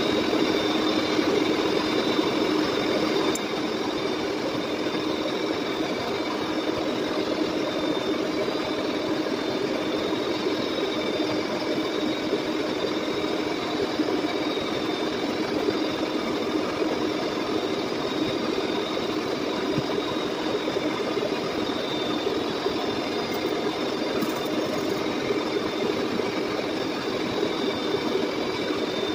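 Lucas model 41 horizontal boring mill running with its spindle turning the cutter while the table traverses the workpiece past it: a steady machine hum that keeps one pitch.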